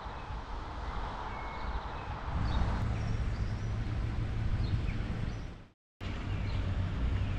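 Outdoor ambience of wind on the microphone and birds chirping. A steady low engine hum joins about two seconds in. The sound drops out for a moment near the end, then the hum and chirps carry on.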